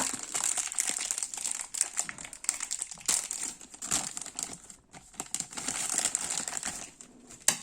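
Packaging crinkling and rustling in the hands as the game's crank handle is taken out of it, in irregular crackles, with a sharp click near the end.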